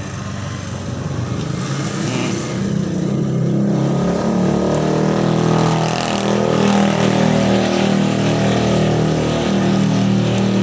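A motor vehicle engine running steadily close by, growing louder a few seconds in and then holding.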